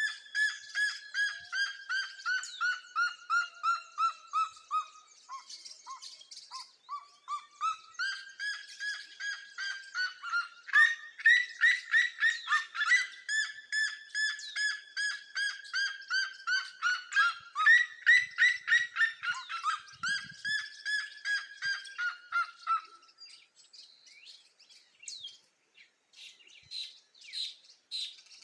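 Birds singing: long series of evenly repeated notes, about three a second, each series sliding down in pitch, with two series overlapping through the middle and fainter, higher chirps near the end.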